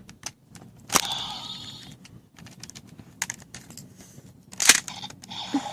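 Plastic clicks of a Gokaiger transformation phone toy as a Ranger key is worked in it and its buttons are pressed, with short electronic sound effects from the toy's small speaker after the louder clicks.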